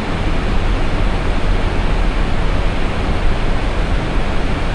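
Loud, steady rushing noise inside an Airbus A320 cockpit: airflow and engine noise of the airliner in flight, unchanging throughout.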